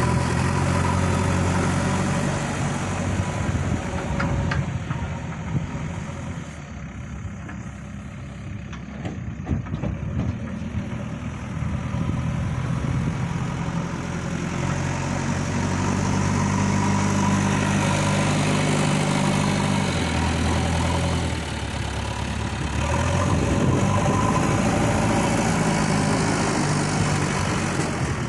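JCB 3DX backhoe loader's diesel engine running as the machine works, the revs easing off and quietening for a few seconds in the first third, then rising again twice in longer stretches in the second half.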